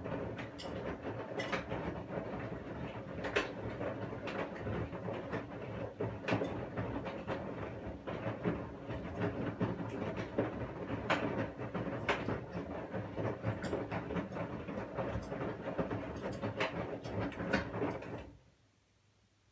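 Washing machine running its wash cycle: the drum turns with a steady motor hum and irregular knocks and clunks from the tumbling load, then stops suddenly near the end.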